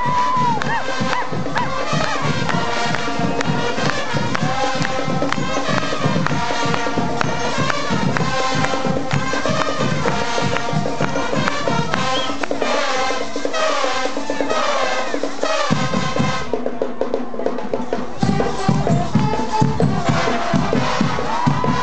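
Marching band playing: brass carrying a melody over a steady drum beat. The low drums drop out for a few seconds past the middle, then come back in.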